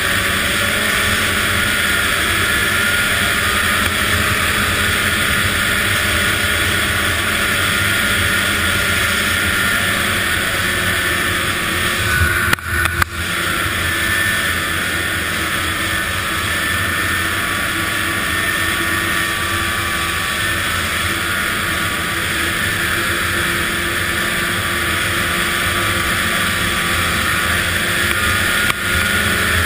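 Arctic Cat ZR 800 snowmobile engine running steadily under way, with wind and rushing noise over it. The sound dips briefly with a short clatter about twelve seconds in, and again just before the end.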